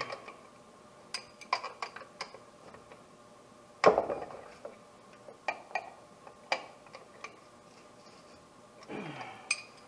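Open-end wrenches clinking on the lock nut and threaded tension rod of a Camso X4S track as the lock nut is tightened: scattered metal clicks, with one loud sharp clank about four seconds in.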